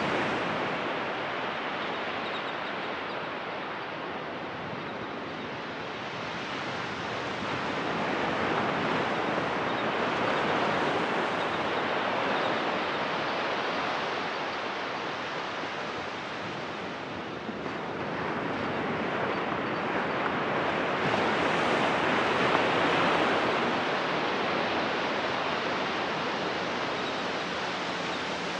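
Ocean surf breaking and washing up a sandy beach in a steady rush. It swells louder about ten seconds in and again a little past twenty seconds, easing between the sets of waves.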